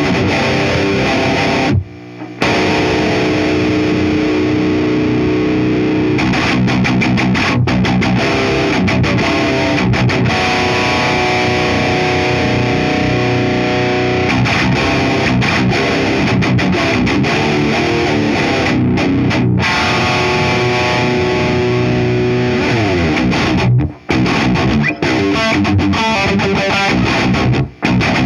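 Heavily distorted electric guitar riffing in drop B tuning through an EVH 5150III 100S amp head on its second channel and a 4x12 cabinet, broken by a few sudden short stops.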